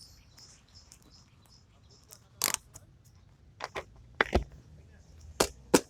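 A few sharp clicks and knocks over a quiet background, several coming in quick pairs. The loudest is about two and a half seconds in, with more near the end.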